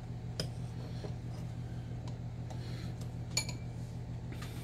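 A few light metallic clinks of a stainless-steel meat injector against a small bowl as it is filled with marinade, the sharpest about three and a half seconds in, over a steady low hum.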